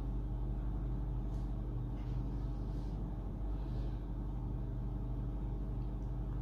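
A steady low hum that holds one pitch with its overtones, with a few faint soft rustles of yarn being handled.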